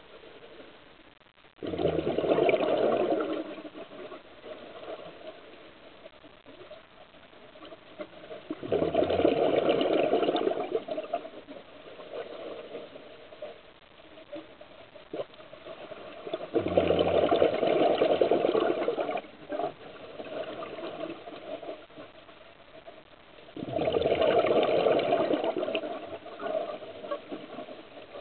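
A scuba diver's exhaled breath bubbling out of the regulator exhaust, heard underwater: four loud gurgling bursts of bubbles, each lasting two to three seconds and coming about every seven seconds, the rhythm of steady breathing, with quieter sounds between.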